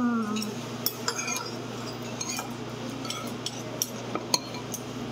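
A metal spoon clinking against a ceramic soup bowl while soup is scooped: a series of light, sharp clinks at uneven intervals, the loudest a little after four seconds in. A brief murmur of a voice at the very start.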